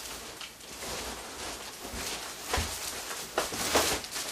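Rustling and scraping of cardboard and plastic packaging as a boxed stroller is pulled out of its carton, with a few knocks and bumps in the second half.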